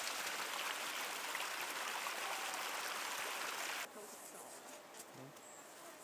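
Steady rush of flowing stream water. It cuts off abruptly about four seconds in, leaving a quieter, similar background.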